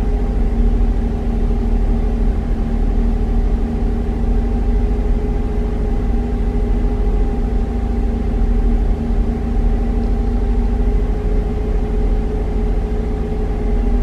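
Chevy Traverse V6 engine, heard from inside the cabin, held at a steady 1500 RPM while cylinder 4 misfires repeatedly, which the owner puts down to a worn spark plug.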